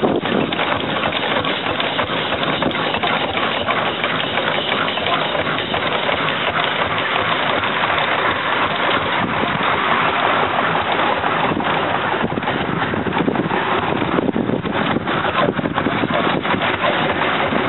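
Scale-model Baker uniflow steam traction engine running, a steady dense noise with no clear beat.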